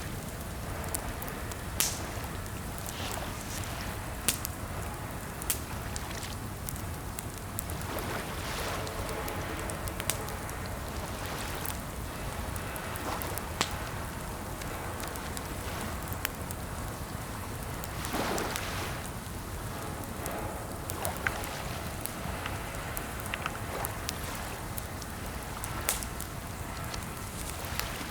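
Typing on a computer keyboard: irregular key clicks, with a few sharper strokes every few seconds, over a steady rain-like hiss.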